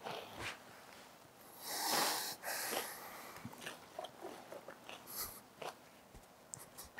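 A plastic snack bag crinkling and rustling as it is handled, loudest about two seconds in, followed by scattered faint crackles and clicks.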